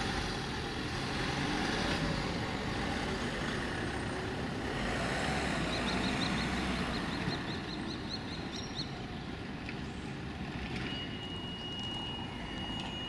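Renault Master box truck's engine running as it drives along the street and past, with road noise throughout. About halfway through comes a run of quick high ticks, about four a second, and near the end a steady high tone starts.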